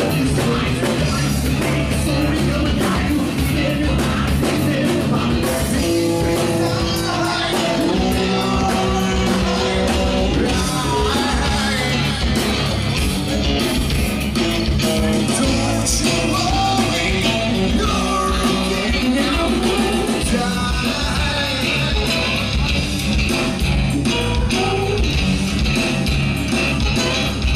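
Live acoustic rock band playing: guitars and bass guitar with a singing voice, steady and full throughout.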